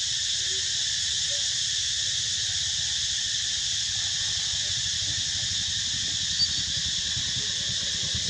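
A chorus of insects droning steadily at a high pitch in several layered bands, with a faint low rumble underneath.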